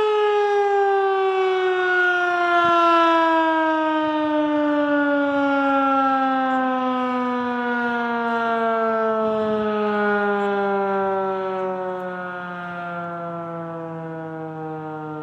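Outdoor tornado warning siren winding down: one tone with strong overtones gliding slowly and steadily down in pitch, growing gradually quieter.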